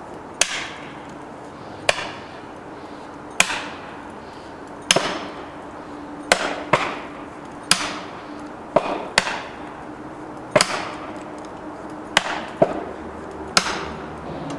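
Hammer blows driving felling wedges into the cut of a standing tree: about a dozen sharp, ringing strikes, roughly one every second and a half, some close together in pairs. The wedging is meant to tip the tree over.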